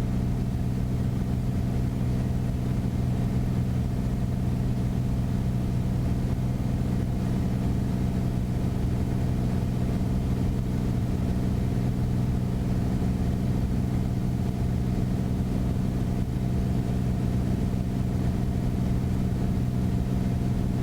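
Beechcraft Bonanza's single piston engine and propeller droning steadily in the cockpit, with no change in pitch.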